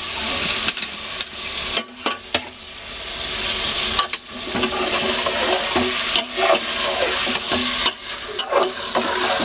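Chicken pieces and chopped tomatoes sizzling in hot oil in an aluminium pot while a slotted steel spatula stirs them, with a steady frying hiss. The spatula scrapes and clinks against the pot now and then. This is the bhuna stage, the meat and masala being fried before any water goes in.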